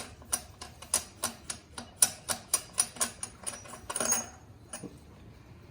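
Half-inch drive ratchet with a 55 mm socket clicking rapidly and evenly, about three to four clicks a second, as the loosened rear wheel nut is run off. The clicking stops about four seconds in.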